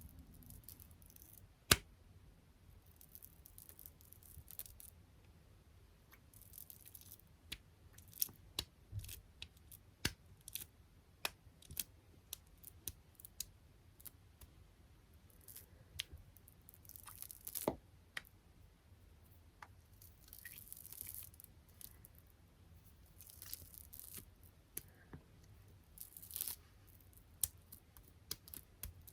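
Close-miked ASMR tapping on small items such as squishy toys, clips and stickers: irregular sharp taps and clicks, with short rustling, peeling sounds every few seconds.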